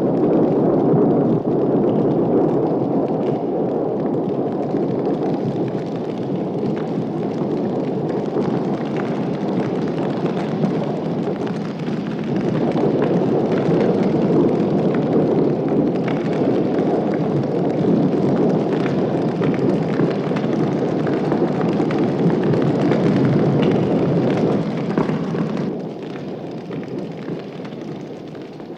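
A loud, continuous rumbling roar with scattered crackles and pops, dipping briefly about halfway through and fading down in the last few seconds.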